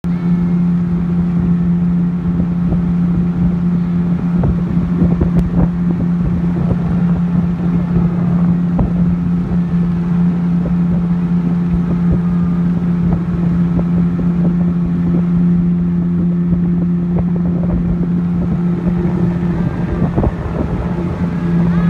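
Small motorboat's outboard motor running at a steady cruising speed, a constant even hum, with wind buffeting the microphone underneath.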